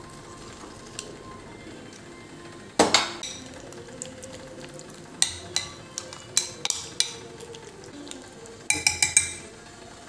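Metal spoon stirring a soft mash in a glass bowl, clinking and scraping against the glass in a string of sharp clinks, with a quick cluster near the end.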